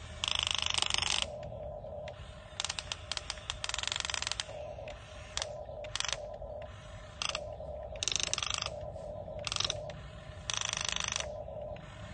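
Small geared mechanism ratcheting and grinding in about seven short bursts over a steady whine.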